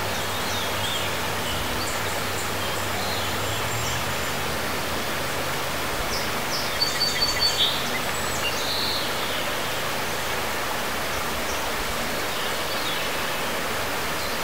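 Woodland ambience: a steady, even rushing noise with small birds chirping over it. The birds are loudest in a quick run of about five high chirps around seven seconds in.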